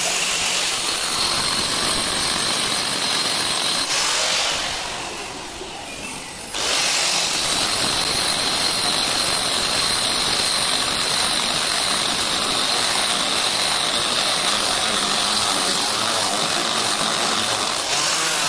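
Electric angle grinder fitted with a core bit, boring a round hole through a stone slab: a steady high-pitched whine over harsh grinding noise. The noise eases for about two seconds around four seconds in, then the full cutting sound returns.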